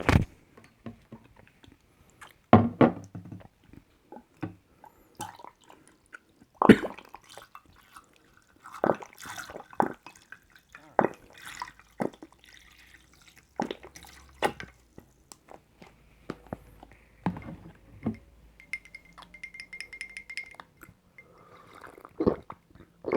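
Drinking sounds from a non-carbonated bottled drink: sips and swallows, among scattered clicks and knocks from handling the bottle.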